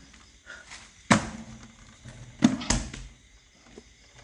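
A few sharp knocks and bumps from someone clambering into a cramped space: one about a second in, then two close together about two and a half seconds in.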